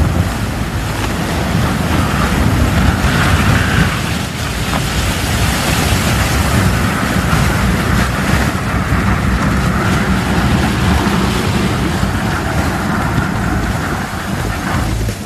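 Steady rumble and grinding of sea ice being broken and shoved aside by the steel bow of the ship Arktika-2 as it passes close by, with wind buffeting the microphone.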